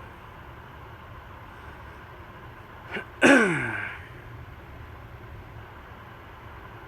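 Steady background noise of a 48-inch TAT industrial ceiling fan with a UFO-style motor running on low speed. About three seconds in there is a click, then a loud, short sound falling steeply in pitch, like a voice.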